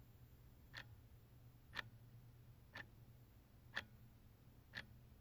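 Faint regular ticking, one short tick each second, over a low steady hum.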